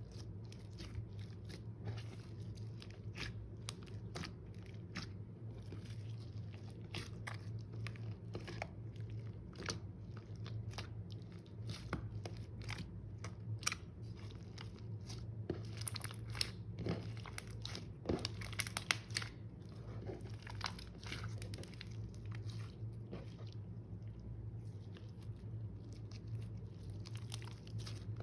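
Slime being kneaded and squished by hand, giving off a steady run of small crackles and pops, a little louder about two-thirds of the way through.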